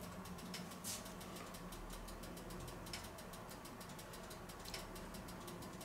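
Faint fine crackling over a steady low hum, with a few light clicks as metal tongs set a grilled gherkin down on a plate.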